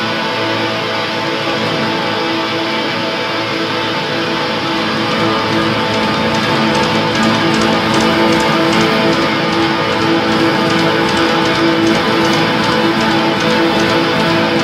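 A black metal band playing live: electric guitars ringing out in held, sustained chords over keyboards and drums. From about six seconds in, sharp repeated hits come through on top and the music grows slightly louder.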